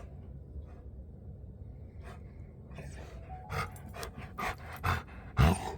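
A dog panting and huffing in a run of short, quick breaths that start about halfway through, the loudest near the end.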